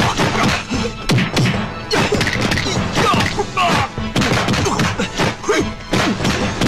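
Martial arts film fight sound: punch and strike impact effects landing in quick succession, with fighters' shouts and a music score underneath.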